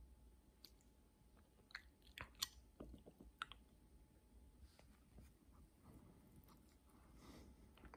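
Faint wet clicking and smacking of a short-haired chihuahua licking and nibbling its paw to clean it. The sharpest clicks come between about two and three and a half seconds in.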